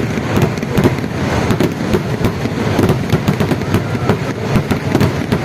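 Kerala festival fireworks (vedikettu): a dense barrage of firecrackers going off in rapid, overlapping succession, many sharp bangs a second with no let-up.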